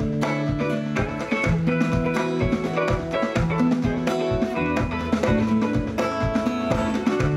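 A live band playing music with held low bass notes, chords above them, and a steady drum beat.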